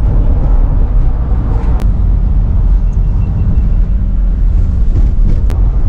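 Road and engine noise inside a moving minibus: a steady low rumble, with two short sharp clicks, one about two seconds in and one near the end.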